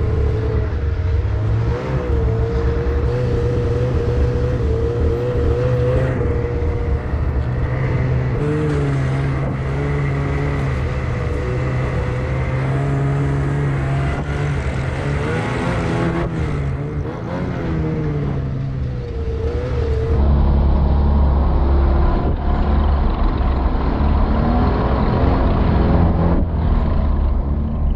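Snowmobile engine running, its pitch wavering up and down with the throttle. A heavier low rumble comes in about twenty seconds in.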